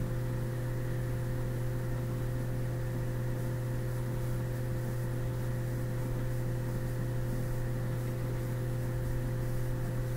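Steady low electrical hum with a faint hiss, unchanging throughout: background noise from the recording setup.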